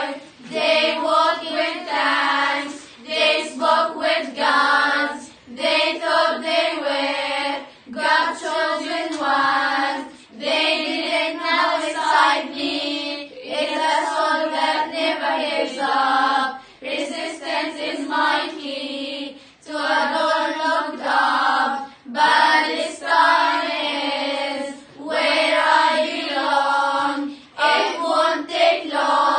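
A group of young girls singing together in unison without instruments, in phrases a few seconds long with brief pauses for breath between them.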